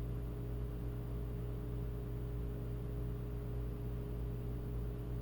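Steady low electrical hum with a faint background hiss, unchanging throughout.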